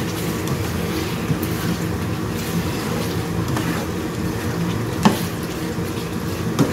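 Goat meat in a thick spicy sauce sizzling and bubbling in a wok while a spatula stirs it, with one sharp knock of the spatula against the pan about five seconds in.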